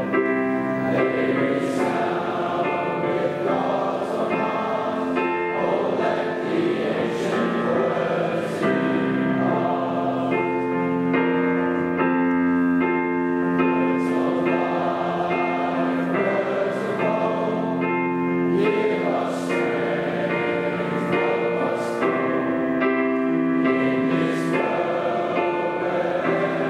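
Teenage boys' voices singing a hymn together, led by a small group of cantors, with digital piano accompaniment.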